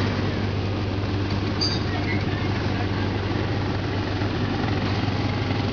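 Vehicle engine running steadily at low speed, a low even drone with no revving, heard from inside a vehicle.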